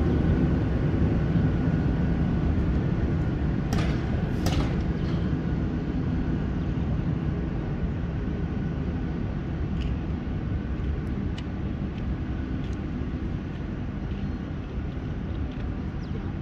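Electric locomotive running slowly through a rail yard: a steady low rumble with a faint hum that slowly fades, and two sharp metallic clacks about four seconds in.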